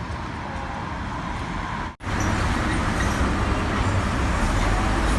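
City street traffic, a steady mix of passing vehicles. About two seconds in it cuts off abruptly and comes back louder, with heavier engine noise from a bus drawing near.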